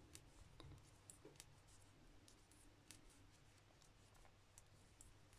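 Near silence with faint, irregular clicks of knitting needles as stitches are worked along a purl row.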